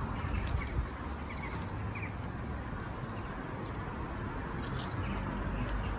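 Outdoor ambience: a steady low rumble and hiss, with a few faint short bird chirps.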